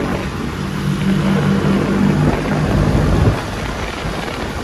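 Classic Vespa scooters' two-stroke engines running as they ride in a group, a low steady engine hum over wind and road noise. The hum drops away a little over three seconds in, leaving the wind and road noise.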